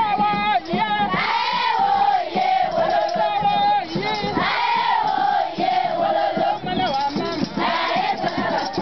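A crowd of schoolchildren singing a song together in chorus, in phrases of long held notes, with crowd noise around them.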